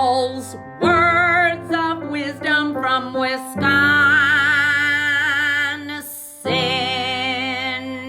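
Intro music: a singer holding notes with a wide vibrato over steady held chords, in phrases of a few seconds with short breaks between them.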